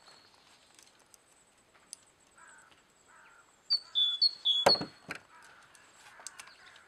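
Hands working on a Husqvarna 240 chainsaw's clutch side: a few short high squeaks come around four seconds in, and one sharp knock, the loudest sound, just before five seconds. A couple of light clicks follow.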